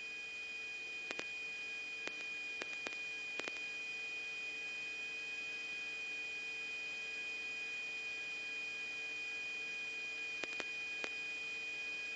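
Steady electronic hum and high whine with faint hiss from a radio recording between transmissions, with a few faint clicks about a second in and again near the end.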